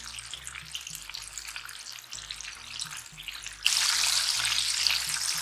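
Flour-coated chicken wings deep-frying in a pot of hot oil: a steady crackling sizzle that suddenly becomes much louder and denser about two-thirds of the way through.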